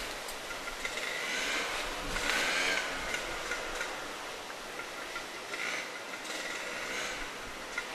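A cloth flag flapping in the wind: a rustling, rattling flutter that swells about two seconds in and again near six seconds.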